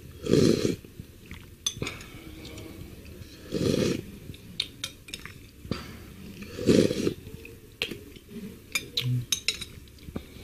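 A metal spoon scraping and clinking against a bowl while the last of a seblak broth is spooned up. Three loud slurps of broth from the spoon, about three seconds apart.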